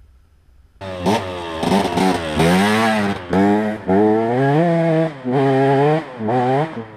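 KTM 125 EXC's single-cylinder two-stroke engine, starting suddenly about a second in, then revving in a series of throttle bursts, its pitch climbing and dropping with short lulls between.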